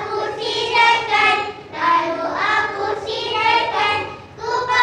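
Young children singing an action song together in short phrases, with brief breaks between lines.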